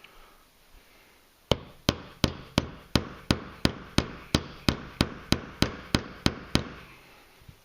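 Small hammer tapping the latch pin into an AR-15 charging handle, about sixteen even, sharp strikes at roughly three a second, starting about a second and a half in.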